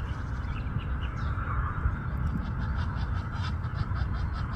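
Egyptian goose calling: a rapid run of short harsh honks, about five a second, starting about halfway through, over a steady low rumble.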